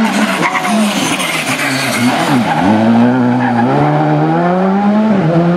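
Rally car engine under hard driving: the revs drop sharply about two and a half seconds in, then climb again in steps through gear changes.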